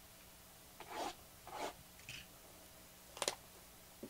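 Hands scraping and rubbing at a sealed trading-card box as it is opened: a few short scrapes, then a sharp snap a little over three seconds in.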